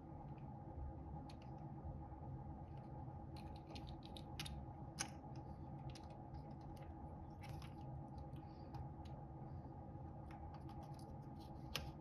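Faint small clicks and light scrapes of a soldering iron tip and fingers working a replacement electrolytic capacitor's leads onto the old leads on a dimmer switch circuit board, over a steady low hum. The sharpest click comes about five seconds in, another just before the end.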